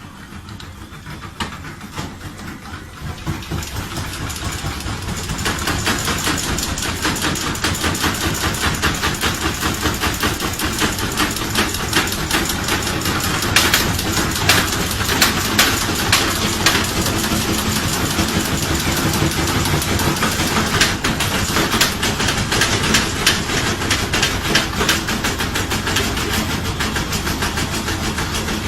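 Washing machine speeding up into its spin cycle over the first few seconds, then running loud with a fast, continuous rattling knock as it shakes hard enough to walk across the floor.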